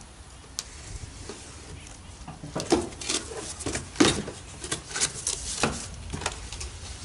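Cardboard box flaps being pulled open and handled, an irregular run of scrapes and rustles that starts a couple of seconds in.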